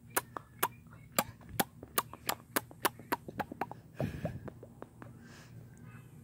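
A quick run of sharp clicks or taps, sparse at first and then about six a second, that stops after nearly four seconds. A dull thump or rustle follows.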